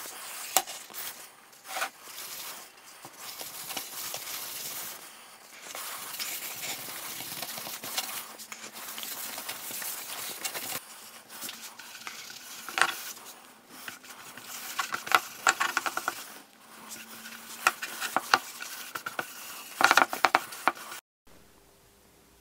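A cloth rubbing boiled linseed oil onto a walnut tray: a steady rubbing hiss with scattered clicks and knocks. Near the end it cuts off suddenly to faint room tone.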